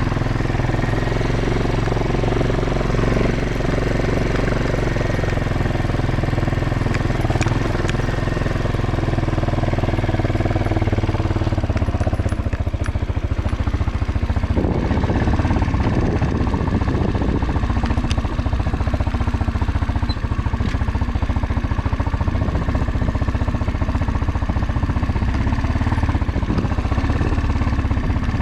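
Motorcycle engine running while riding, heard close up. The engine note changes partway through, as if the revs or gear change.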